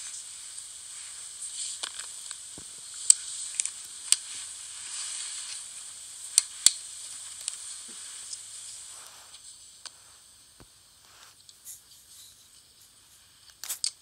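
Steady high hiss with a few sharp clicks and light taps as metal-and-wood folding knives are handled. The hiss drops away about two-thirds of the way through, leaving only faint clicks.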